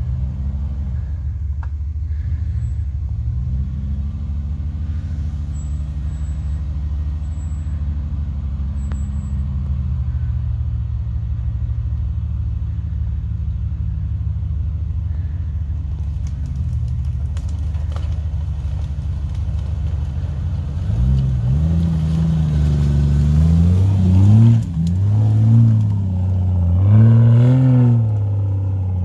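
Off-road 4x4's engine running at low revs as it crawls along a muddy track. From about two-thirds of the way through it is revved hard several times as it climbs a steep bank, louder, with the pitch rising and falling with each burst.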